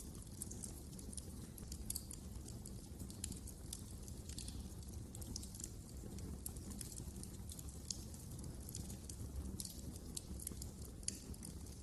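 Fireplace fire crackling: many small, irregular crackles and pops over a steady low noise of the flames, with one sharper pop near the end.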